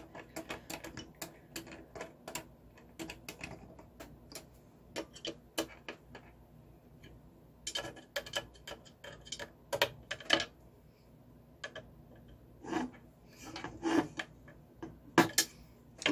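Quick runs of small clicks as screws are tightened with a hand screwdriver into the 3D printer's aluminium frame brackets. Later come sparser, louder knocks of metal parts and tools being handled.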